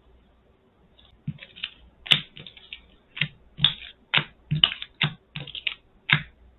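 A quick run of about a dozen light clicks and taps of Magic: The Gathering cards being handled and set down on a tabletop, starting about a second in.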